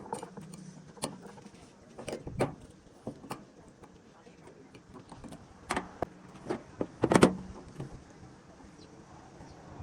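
Metal tool clicks and clinks from snap ring pliers and a steel circlip being worked into a half shaft bearing housing: scattered sharp knocks, with a cluster of louder ones about six to seven seconds in.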